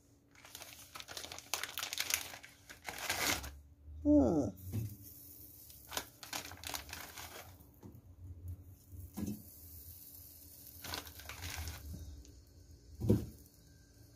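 Plastic packaging of frozen spring rolls crinkling and tearing as it is opened and handled, dense for the first few seconds, with a brief falling squeak about four seconds in. After that, scattered light knocks and rustles as the spring rolls are laid in the air fryer basket.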